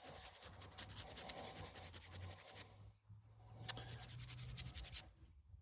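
Toothbrush bristles scrubbing dirt off a freshly dug coin in quick, short scratching strokes. The scrubbing stops about halfway through, then comes a single light click and more brushing.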